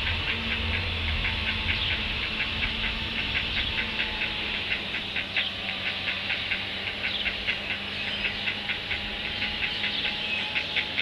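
Young chicks peeping, a rapid stream of short, high peeps, several a second, over a steady hum and hiss.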